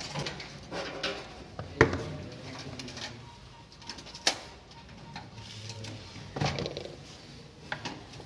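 A few sharp clicks and small scrapes of needle-nose pliers on metal inside an electric fan heater as a terminal connector, stuck fast from the heat, is worked loose, with a low humming sound underneath.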